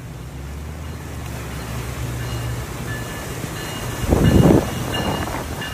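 Brightline passenger train coaches rolling past close by: a steady rushing rumble of wheels on rail that slowly grows louder, with a faint high-pitched squeal. About four seconds in, a brief loud buffet of wind on the microphone.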